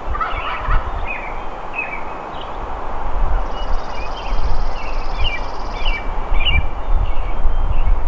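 Several songbirds chirping and whistling in short, repeated calls, with a high, thin trill held for a couple of seconds midway. Under the birdsong runs an uneven rush of wind.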